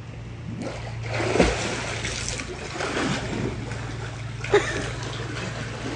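Pool water splashing and sloshing as a swimmer kicks and strokes through it, with two sharper splashes, one about a second and a half in and one near the end, over a steady low hum.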